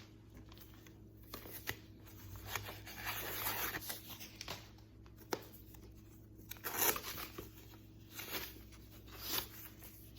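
Packing stuffing being pulled out of a new handbag, rustling and crinkling in irregular bursts.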